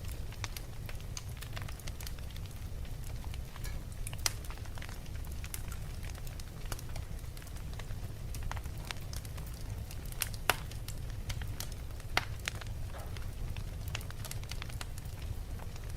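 Fire crackling, with irregular sharp pops over a steady low rumble; the loudest pops come about four seconds in and twice between ten and twelve seconds.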